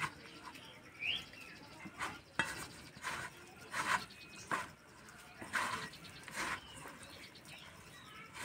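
A hand kneading chopped spinach with gram flour, spices and a little water in a steel bowl to make a fritter batter: irregular short squishing strokes, some every half second, some a second or more apart.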